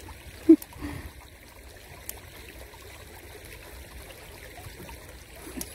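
Shallow ditch water trickling steadily over rocks, with a short voice sound about half a second in.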